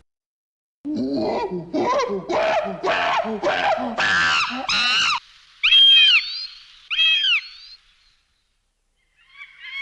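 A series of animal calls: about a second in, a run of about eight short pitched cries climbing in pitch over some four seconds, then two shorter high-pitched calls about a second apart.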